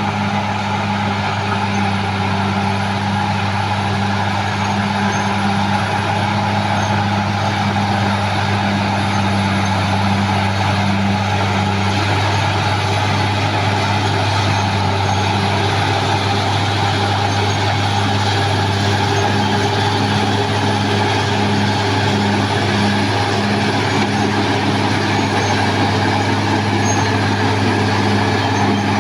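CAT D6R XL bulldozer's diesel engine running steadily and loudly as the dozer works.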